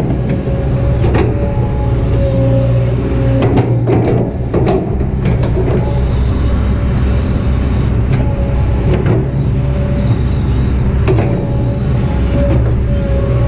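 Kobelco SK200-8 hydraulic excavator working: its diesel engine runs steadily under load with a wavering whine over it, while scattered knocks and clanks come from the machine and bucket at work, with brief bursts of hiss a few times.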